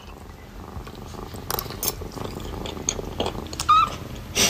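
A white kitten purring steadily right beside the microphone. A few faint clicks and one brief high squeak are heard about three-quarters of the way through.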